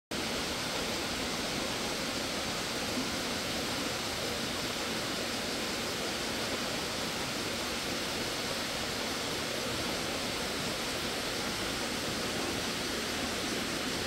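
Steady rushing of stream water, an even hiss without breaks or changes.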